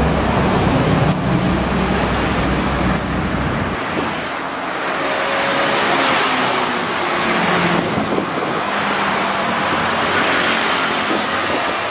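Roadside traffic: vehicles passing one after another, with tyre and engine noise swelling and fading with each pass. A deep engine rumble cuts off suddenly about four seconds in.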